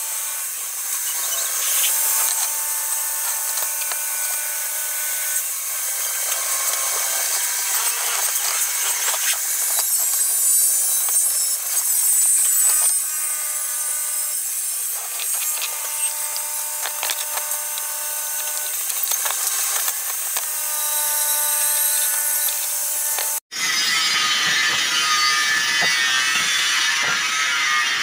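Handheld power tool running on workpiece material with a steady whine and a high hiss, its pitch shifting with the load. About three-quarters of the way in, the sound cuts off abruptly and resumes as a fuller, lower-reaching tool noise.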